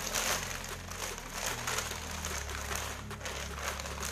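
White plastic mailer bag crinkling as it is handled and opened by hand, a continuous run of small crackles.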